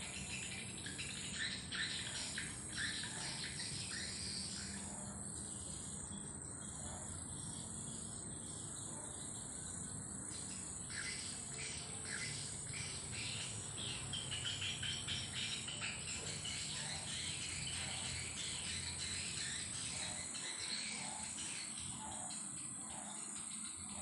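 A chorus of insects trilling in a steady, high-pitched tone, with many short chirps scattered over it.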